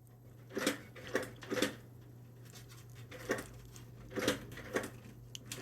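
Small plastic-and-metal clicks and knocks of a display cable connector being handled and pulled from a computer's video port, a scattered string of short clicks, over a steady low hum.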